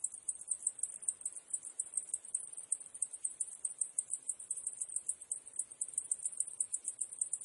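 Cicadas calling in a steady, high-pitched chorus that pulses rapidly and unevenly, several pulses a second.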